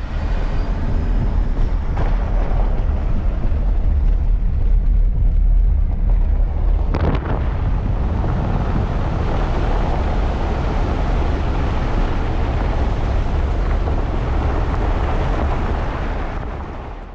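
Car driving on the road: a steady low rumble of engine and road noise, with a couple of short knocks.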